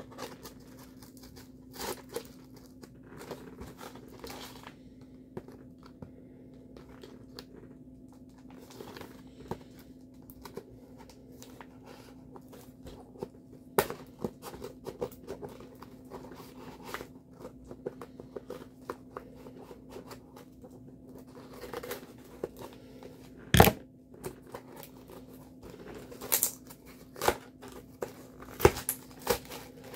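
Scissors snipping and cutting through packing tape on a heavily taped parcel, with scattered crinkling and handling of the packaging and one sharp knock a little after two-thirds of the way through. A steady low hum runs underneath.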